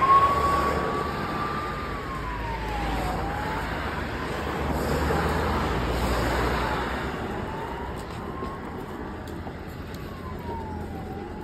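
An emergency vehicle's siren wailing slowly up and down over the noise of road traffic.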